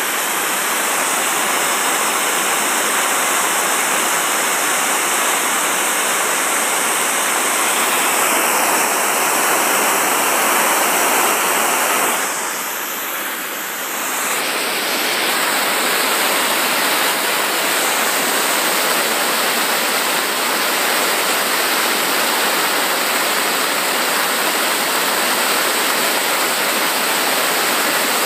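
Propane hand torch burning with a steady, even hiss as its flame melts a block of lead, dipping briefly about twelve seconds in.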